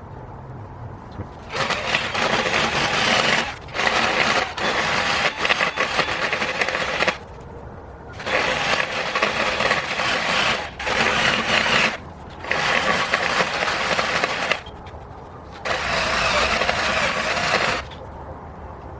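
Electric drill spinning a square, flat rotary rasp bit against a curbed aluminum wheel rim, grinding down the damaged lip. It runs in about six bursts of two to three seconds, with short pauses between.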